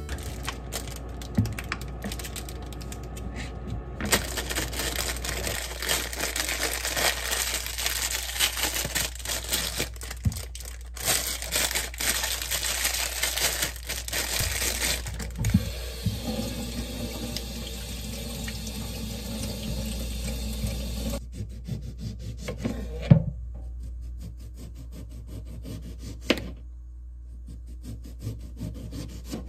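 Kitchen handling sounds: a plastic bag crinkling and tearing as lemons are unwrapped, a few sharp knocks on a wooden cutting board, and a knife slicing through a lemon near the end.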